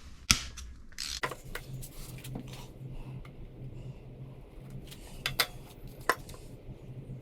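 Metal tools and engine parts clinking and knocking on a workbench during engine dismantling: a few sharp knocks, the loudest close together about five seconds in, over a low steady hum that begins about a second in.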